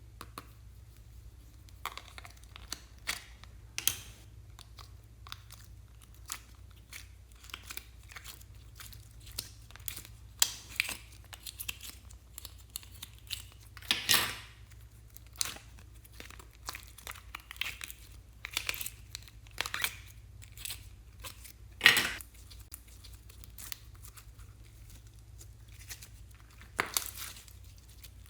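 Slime being squeezed, stretched and poked by hand: irregular sticky crackles and pops, with a few louder pops.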